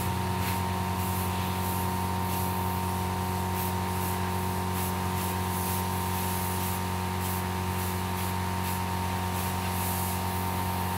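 Aerosol spray paint can hissing in a run of short bursts as paint is sprayed onto a statue, over a steady low hum.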